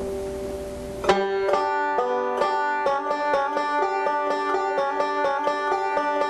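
Five-string banjo picked in three-finger bluegrass rolls, a quick and even stream of plucked notes. The picking comes in sharply about a second in, after a moment of ringing strings.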